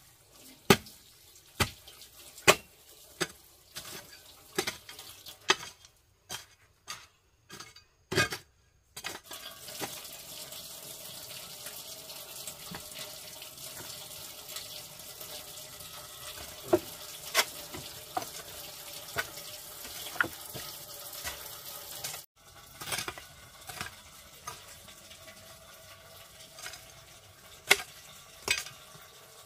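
Water running steadily into a sink, with scattered sharp knocks and clinks. In the first nine seconds, before the water starts, there is a run of sharp knocks about one a second with short silent breaks. The running water cuts off suddenly about two-thirds of the way through, and the knocks go on.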